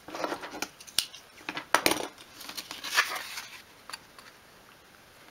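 Wooden clothes pegs clattering and clicking as they are picked out of a plastic basket and one is clipped onto a small wooden board, with a few sharp clicks, the loudest about two seconds in, then quieter handling rustles.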